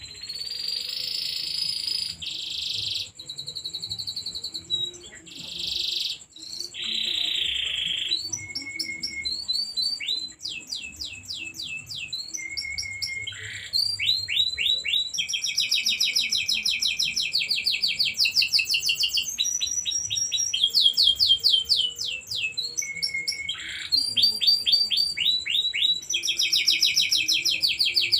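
Domestic canary singing a long continuous song: harsh buzzy notes at first, then rapid trills of quickly repeated notes, fuller and louder from about halfway through.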